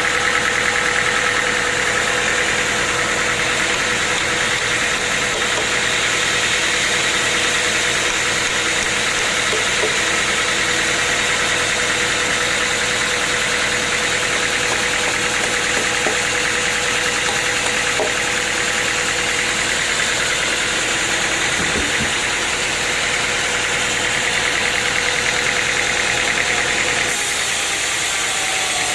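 Sawmill machinery running steadily: a loud, even engine drone with a constant whine over it. The sound changes abruptly near the end.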